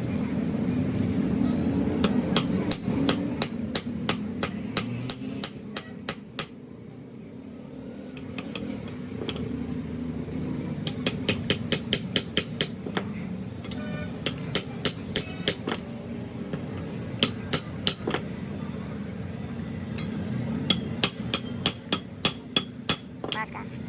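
Hammer striking hot steel on an anvil in runs of quick, evenly spaced blows, about three a second, each with a bright metallic ring, broken by short pauses. A steady low hum runs underneath.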